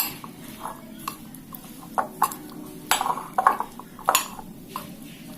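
Spoon stirring a moist mixture of chopped vegetables in a bowl, knocking and scraping against the bowl's sides in irregular clinks. The louder knocks come between about two and four and a half seconds in.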